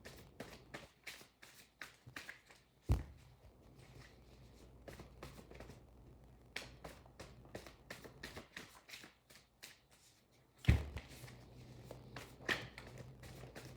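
Tarot cards being shuffled by hand: a rapid run of soft card flicks and riffles. There are two louder knocks, about three seconds in and again near eleven seconds in.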